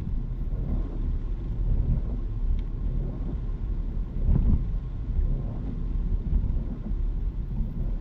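Inside the cabin of a car at expressway speed on a wet road, a steady low rumble of road and engine noise rises and falls slightly, swelling most about four and a half seconds in, while the windshield wipers sweep.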